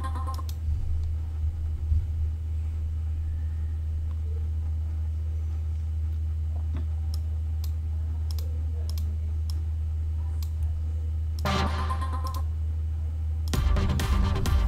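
Scattered computer mouse clicks over a steady low hum. About two-thirds of the way in, a short snatch of electronic music plays back, and the music starts again about a second before the end.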